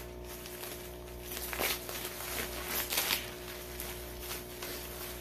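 A shipping package being opened by hand: scattered rustles and scrapes of its wrapping, over a steady low hum.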